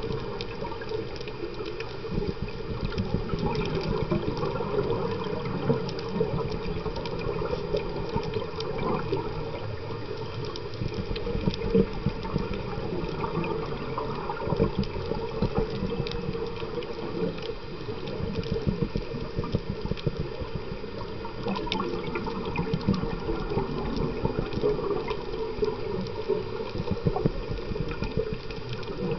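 Underwater scuba-dive sound: a continuous gurgling rush of bubbles from divers' regulators, with many small clicks.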